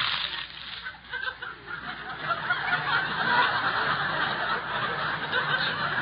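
Studio audience laughing, dipping briefly about a second in and then swelling and holding.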